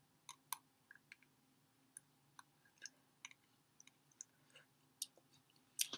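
Faint, scattered small clicks of someone eating a spoonful of hot instant soup: soft mouth and spoon noises at irregular intervals, with a louder breathy sound right at the end.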